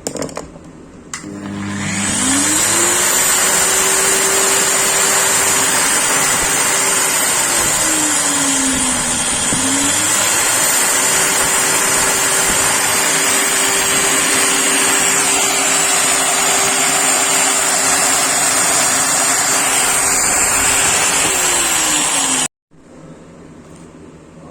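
GL-190S angle grinder with a newly replaced armature, run up on a test: its motor spins up to a steady whine, sags in speed once and picks back up, then holds steady before winding down and stopping. The speed stays even with no jerking, a sign that the armature fault is cured.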